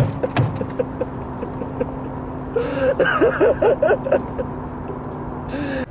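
A man laughing wildly in quick bursts, briefly at the start and again in a longer spell in the middle, over a steady low hum.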